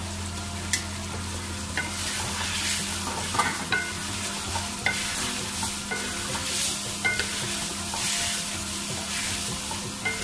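Wooden spatula stirring cubed carrots, potatoes and peas as they fry in oil in a metal pan: a steady sizzle with repeated swishing strokes and occasional short knocks of the spatula against the pan.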